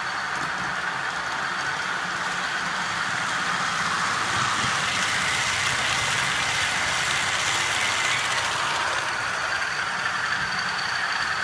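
A locomotive-hauled sleeper train, headed by Class 55 Deltic 55 019, drawing into the platform: coaches rolling past and slowing, coming to a halt near the end, over the steady running of the locomotive's diesel engines.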